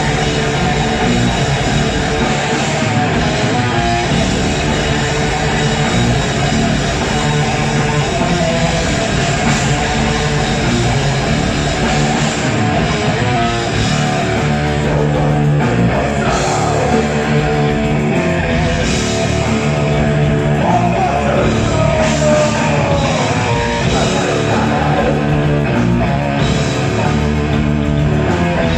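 Live metal band playing loud, dense music: distorted electric guitars over bass and drums, continuous throughout.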